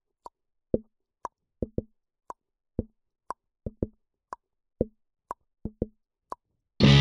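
A sparse percussion rhythm of short hits, low plops alternating with higher clicks about twice a second, some of the low hits doubled. Near the end, loud distorted electric-guitar heavy metal music crashes in.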